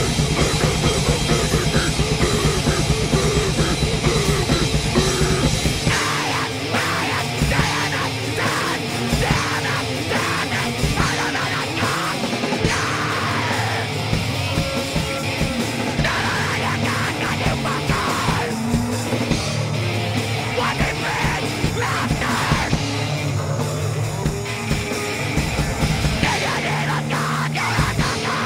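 Live punk/metal band playing: distorted guitar, bass and drums with yelled vocals. About six seconds in, the heavy low rumble drops away and the playing turns choppier, with many sharp hits.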